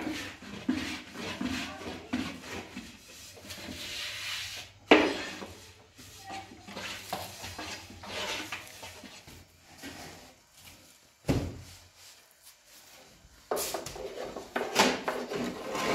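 Thin wooden rolling pin rubbing and tapping on a round wooden board as flatbread dough is rolled out, with irregular small knocks and a couple of sharper raps, about five seconds in and again near eleven seconds.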